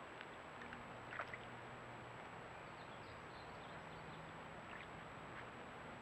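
Faint steady hiss of a trail camera's recording with a thin high steady tone, and a few short faint clicks about a second in.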